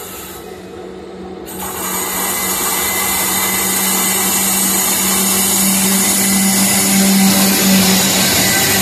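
Twin WAG-7 electric locomotives approaching and passing close by at the head of a goods train: a steady hum with a high whine, growing louder from about a second and a half in.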